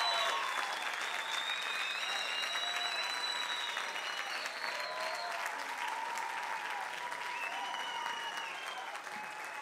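Audience applauding steadily, slowly easing off.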